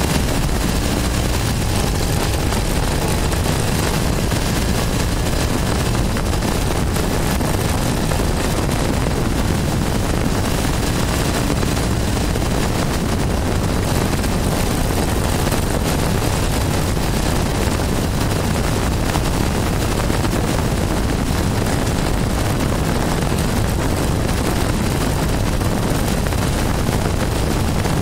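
1973 Triumph Tiger's parallel-twin engine running at a steady cruise while riding, mixed with steady wind and road noise.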